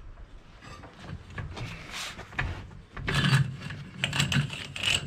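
Coiled 6 mm steel rod spring being worked off the lathe mandrel it was wound on, steel scraping and grating against steel in irregular strokes, louder and busier in the second half. The coil was wound so tight it is hard to get off.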